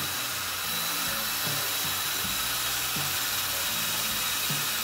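Cordless drill spinning a wire wheel brush against a steel motorcycle exhaust header pipe, a steady scrubbing whir with a faint high whine, cleaning the pipe's surface. Quiet background music plays under it.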